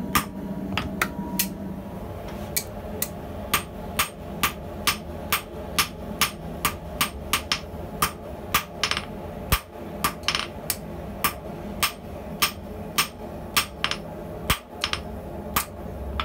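Hand hammer striking red-hot medium-carbon steel on a steel anvil while forging a flat tong jaw: a steady rhythm of about two to three blows a second, with a short pause about two seconds in. A low steady hum runs underneath.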